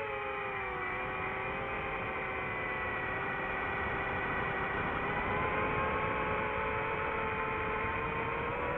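FPV quadcopter motors whining steadily over a rush of prop noise, the pitch dipping about a second in and rising again near the end as the throttle changes.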